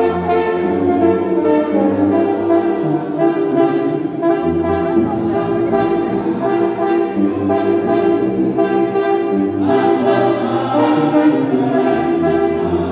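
Brass band with a sousaphone playing: held brass notes and chords over a sousaphone bass line that moves to a new note every few seconds.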